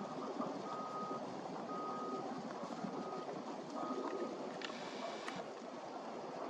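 Steady low rumble of outdoor background noise with a vehicle's reversing beeper sounding four half-second beeps about once a second. A brief scratchy sound comes about five seconds in.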